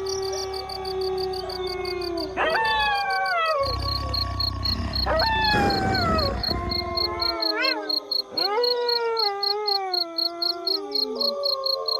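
A chorus of wolves howling: several overlapping voices, each howl swooping up and then sliding slowly down in pitch, with new howls joining about two and a half, five and eight and a half seconds in. A rapid, even high-pitched pulsing runs underneath.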